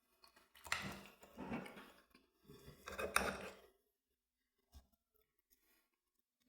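Knife and fork working on a plate of food, cutting and scraping in two strokes of a second or so each, then a single light click.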